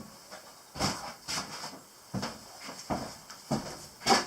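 Irregular rustles, clicks and small knocks of hands handling a small fitting and its packaging, about six separate sounds, the last, just before the end, the loudest.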